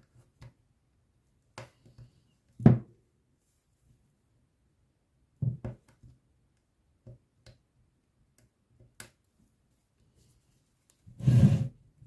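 Hand work at a bench: small tools and parts being picked up and set down, giving scattered knocks and taps, the loudest a sharp knock a few seconds in, with a brief scraping, rustling handling sound near the end.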